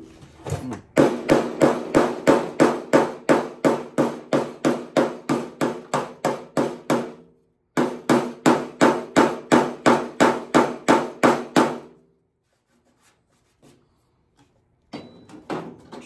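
Hammer beating a small piece of copper flat, a rapid run of ringing metal blows at about three a second. The blows pause briefly about seven seconds in, resume, and stop about twelve seconds in.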